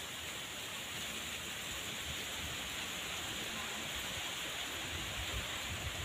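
Steady outdoor hiss, even throughout, with a high steady drone above it and uneven low rumbling underneath.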